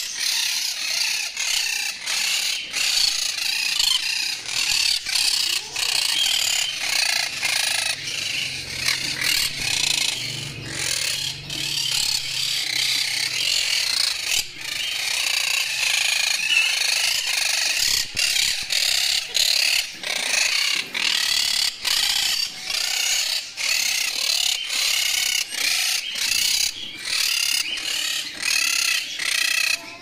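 Many caged small parrots, such as budgerigars and parakeets, chattering and chirping at once in a dense, unbroken twitter.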